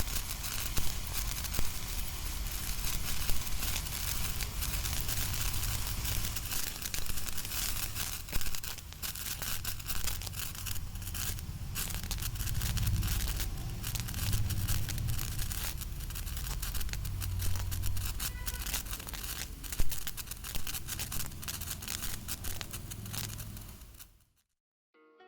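Pencil crackle firework burning: a dense, continuous crackling of tiny pops, with a few louder single cracks. It cuts off suddenly near the end.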